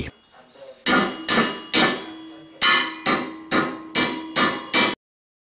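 Hammer knocking out the cut segments of a home-made steel railway wheel's flange to flare it: about nine sharp metallic blows, each ringing briefly, cutting off suddenly about five seconds in.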